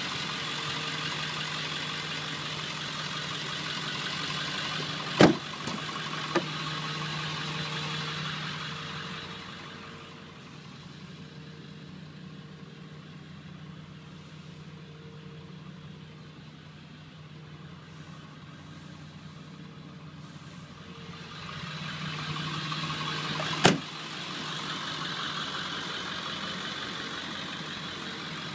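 Ford 7.3-litre Power Stroke V8 turbo diesel idling steadily, louder and brighter at the start and end and fainter through the middle. Two sharp thumps, one about five seconds in and another near the end.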